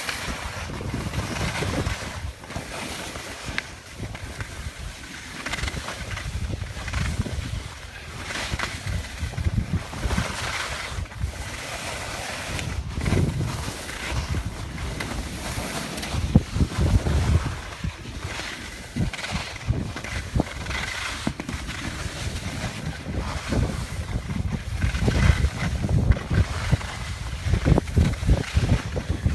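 Wind buffeting the microphone of a camera carried by a descending skier, a low rushing rumble that swells and fades every second or two, with skis scraping and swishing over packed snow. It grows louder near the end.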